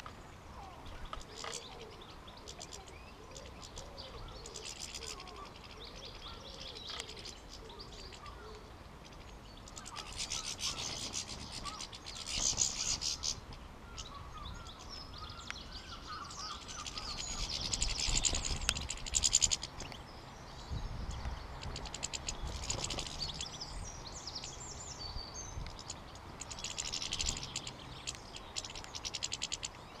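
Goldfinches twittering at a seed feeder: bursts of high, tinkling chirps that come and go several times, with a few sharp clicks in the first seconds.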